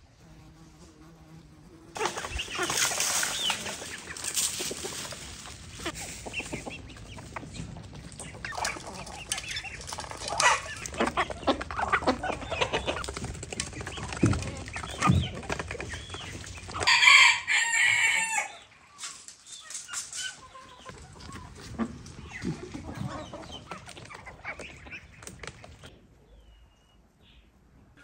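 A flock of chickens clucking and calling, starting after a couple of quiet seconds, with a rooster crowing once past the middle; the calls thin out near the end.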